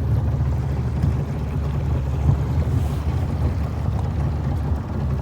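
A steady, loud low rumbling noise without a clear pitch.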